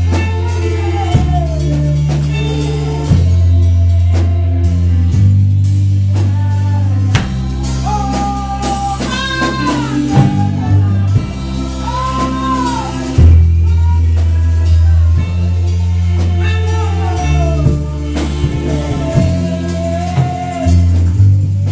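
Worship music: a voice singing a melody over drums and a bass line that moves from note to note every second or two.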